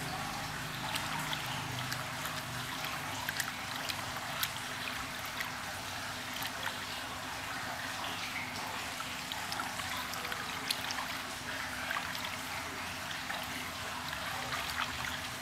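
Water sloshing and trickling in a plastic tub as hands rub a soaked kitten's fur during a flea bath, with many small splashes and drips.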